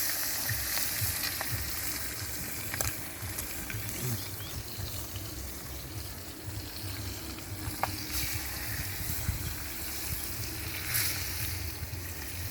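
Curry frying in hot oil in a cooking pot, a steady sizzle with a few faint sharp clicks.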